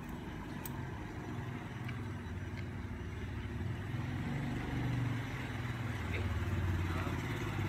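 A motor vehicle's engine running close by: a steady low hum that grows a little louder in the second half.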